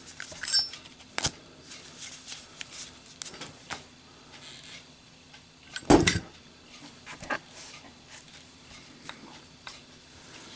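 Metal clicks from a lit Zippo windproof lighter being handled, then a single loud clatter about six seconds in as it is dropped onto a hard surface in a lit drop test.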